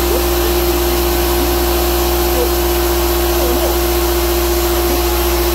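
Impax 24-litre electric air compressor, rated at 97 decibels, running and pumping up its tank: a loud, steady motor hum with a strong drone.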